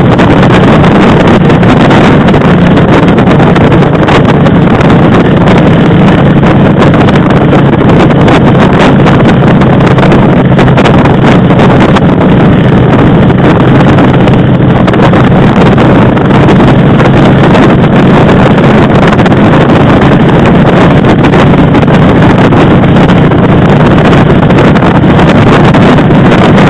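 Motorcycle riding at a steady road speed: a constant engine drone under heavy, loud wind rush on the microphone.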